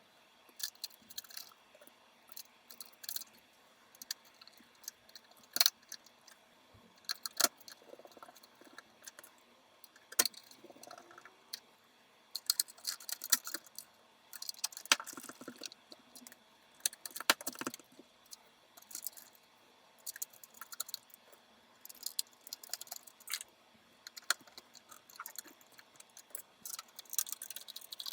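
Hands working on the PC-9821An desktop computer's parts: irregular clicks, taps and light rattles of small plastic and metal parts being handled, with short rustles in between.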